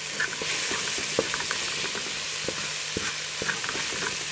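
Chopped onions, garlic and tomatoes sizzling in a metal pot as curry powder is stirred in. The spoon scrapes and clicks against the pot over a steady frying hiss, which grows louder about half a second in.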